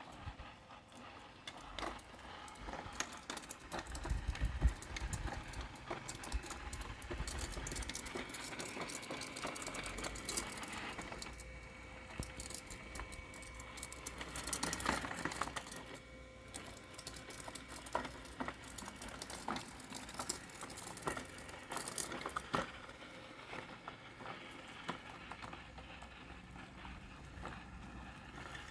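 Parkside robotic lawn mower running through cluttered grass: a faint steady motor whine under many small clicks and rattles, with a few low thumps about four to five seconds in.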